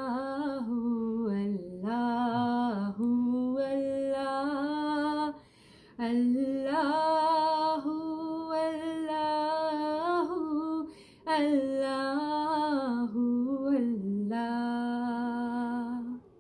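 A woman's solo voice singing a hamd unaccompanied: long drawn-out notes with ornamented glides and no clear words, in three long phrases that break briefly about five and eleven seconds in.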